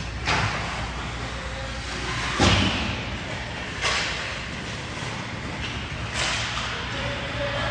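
A basketball thudding in an echoing gym hall: four sharp thuds at uneven spacing, a second or two apart, the second the loudest.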